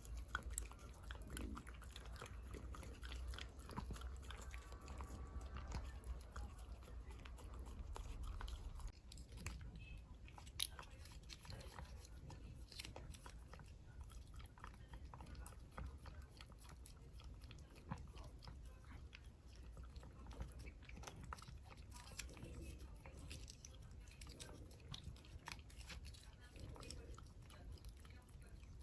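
A dachshund licking and chewing a squeeze-tube paste treat: faint, irregular wet smacks and small clicks of the mouth and tongue.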